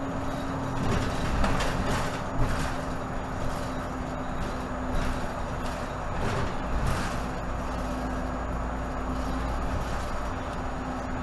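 Inside a 2018 Nova Bus LFS diesel city bus under way: a steady engine drone and hum with low road rumble, and bursts of interior rattling and knocks about one to three seconds in and again around six seconds in.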